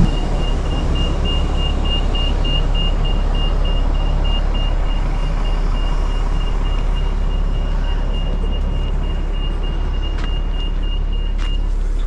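Shuttle bus engine running with a steady low rumble, while a high electronic warning beep repeats rapidly and evenly, stopping just before the end. A couple of clicks come near the end.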